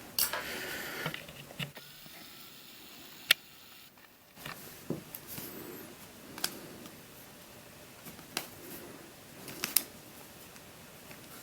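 Faint handling noises of a puzzle cube and its box: light rustling, then a handful of scattered sharp clicks and taps, the loudest about three seconds in.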